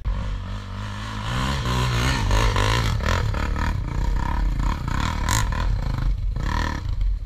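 Sport ATV engine revving hard under load as the quad climbs a steep dirt slope; the pitch rises about a second in and stays high, with rattling and clatter over it.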